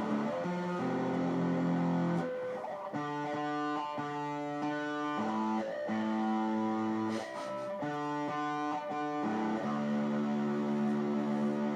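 Modded electric guitar played through an amp: held notes with rich overtones, each ringing for a second or two before moving to a new pitch.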